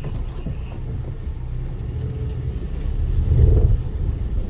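Low, steady road rumble of a car driving on rain-wet streets, swelling briefly a little past three seconds in.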